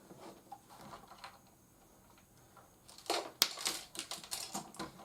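Hard plastic toy parts clicking and rattling as an action figure is handled, with a few faint clicks at first and then a quick run of sharp clicks about three seconds in.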